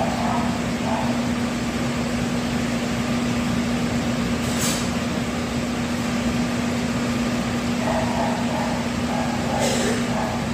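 Steady whoosh of a running machine with a constant low hum underneath, and a short hiss about four and a half seconds in.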